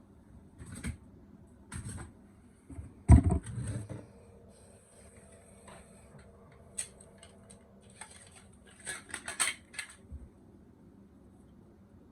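Hand tools and plastic detector parts being handled during wiring work: scattered clicks, rattles and knocks, loudest with one knock about three seconds in and a quick run of clicks near the end.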